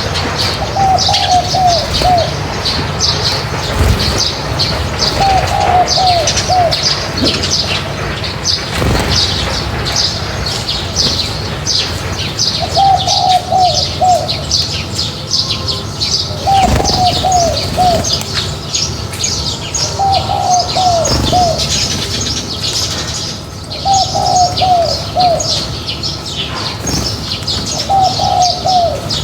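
A flock of birds at a feeding spot, with many small birds chirping rapidly and without a break. A lower call of three or four quick falling notes repeats every few seconds, and a few wing flaps or thumps come in between.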